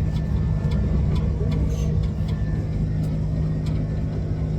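Jet airliner cabin noise in flight: a steady engine and airflow drone with a low hum, with a few faint clicks over it.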